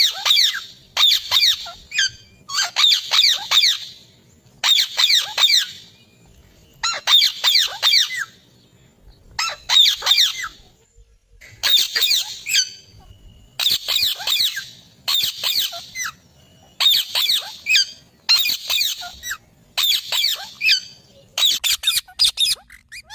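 Indian ringneck parakeet calling: repeated bursts of quick, shrill, falling notes, each burst about a second long with short pauses between.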